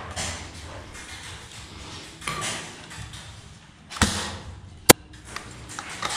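A spring-powered bolt-action airsoft sniper rifle (Tokyo Marui VSR-10) is fired inside a steel shipping container. There is a sharp crack with a short ring about four seconds in, then a louder, very short crack just under a second later, over low handling and shuffling noise.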